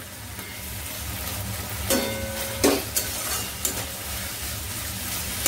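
Vegetables and sauces sizzling in a wok while a metal spatula stirs and scrapes the pan, with a few sharp clinks of spatula on metal between about two and three and a half seconds in.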